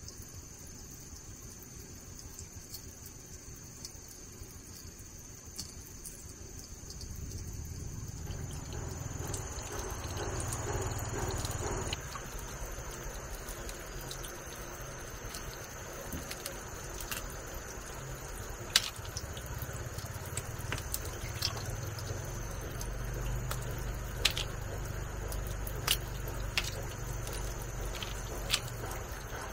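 Water trickling and splashing in a plastic basin as live freshwater crabs are rinsed and handled by hand, louder after the first few seconds, with occasional sharp clicks in the second half. A steady high insect drone runs underneath.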